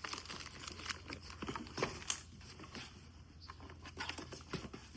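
Handling noise: irregular rustling, crinkling and light knocks of packaging being moved about, loudest about two seconds in.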